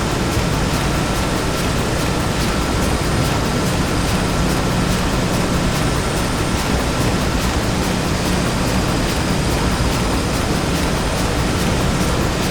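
Factory ambience built as a stage sound effect: a steady, dense machinery din over a low rumble, with faint, rapid, regular ticking and a thin whine that fades out a few seconds in.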